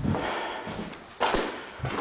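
Heavy footsteps on a bare wooden floor, a few separate knocks with rustling between them.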